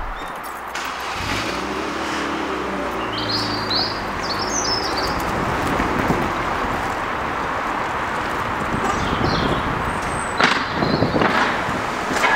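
Outdoor car-park ambience: a steady hum of traffic, with birds chirping about three to five seconds in and again briefly later. A few brief thumps near the end.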